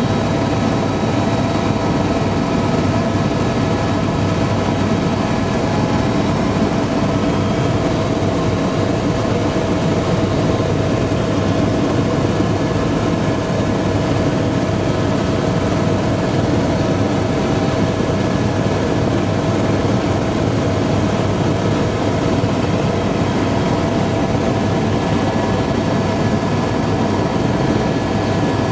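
Helicopter in flight, heard from inside the passenger cabin: a loud, steady drone of engine and rotor noise with several constant whining tones, unchanging throughout.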